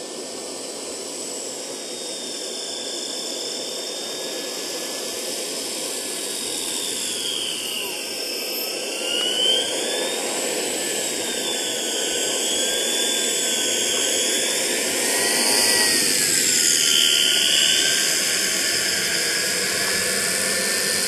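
JetCat model turboprop engine on a scale Pilatus PC-6 model running as the plane taxis on grass. Its turbine whine glides up and down in pitch with the throttle over a steady rushing roar, and it grows louder as the plane comes closer.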